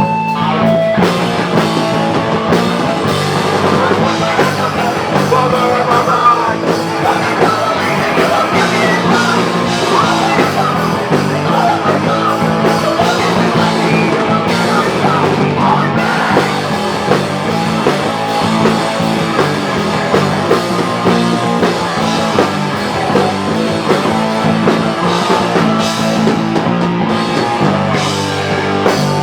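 Rock band playing live and loud, punk-style: guitars over a steady pounding of drums and bass, with vocals at times.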